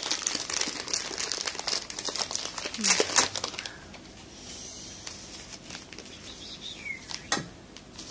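Packaging crinkling and rustling as it is handled and unwrapped, dense for the first four seconds or so, then quieter with a few scattered taps and one sharper click near the end.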